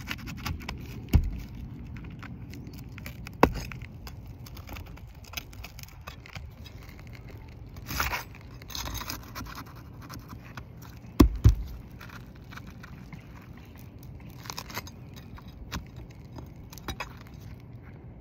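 Flat pry bar working under asphalt three-tab roof shingles to loosen and pull the nails: intermittent scraping of the bar against the shingles. A few sharp clicks come through, the loudest a close pair about two-thirds of the way through.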